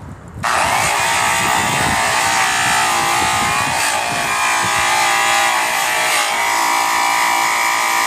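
Handheld high-speed polisher (about 6,000 RPM) spinning a yellow airway buffing wheel loaded with brown Tripoli compound against an aluminum wheel rim, for the initial cutting stage. It starts abruptly about half a second in, then runs steadily with a high whine.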